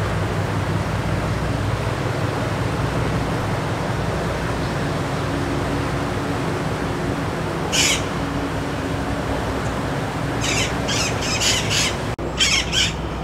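Steady low hum of a large motor yacht's engines as it cruises slowly past. A bird squawks once about eight seconds in, then gives a quick run of short, loud squawks near the end.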